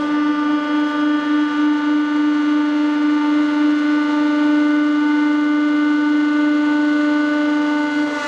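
Hydraulic press running as the ram descends, its pump giving one steady held tone with overtones.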